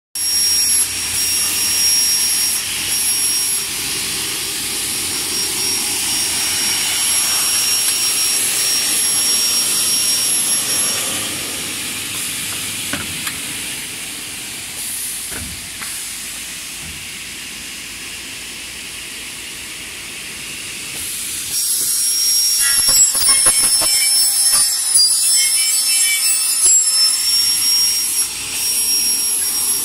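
Automatic aluminium cutting machine's saw running and cutting through aluminium radiator extrusions: a loud, steady high whine over a hiss. It eases off to a quieter run midway, then comes back up, with a rapid run of clicks and knocks near the end.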